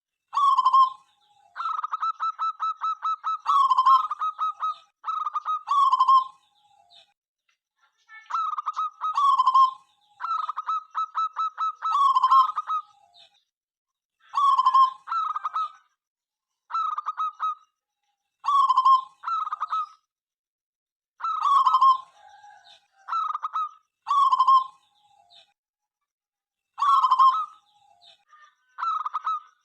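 Zebra dove (perkutut) singing: repeated cooing phrases near 1 kHz, some opening with a rapid rattling run of notes, separated by short pauses.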